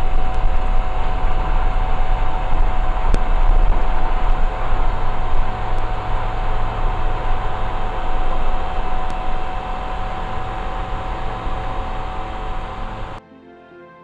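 Foxbat light aircraft's engine and propeller running at full power on the take-off roll: a loud, steady drone with a steady whine over it. It cuts off suddenly near the end, giving way to soft music.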